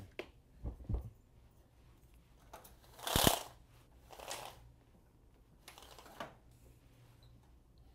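Rustling and light knocks of bags and belongings being handled in a small room. The loudest is a rustle with a thump about three seconds in, with two softer rustles after it.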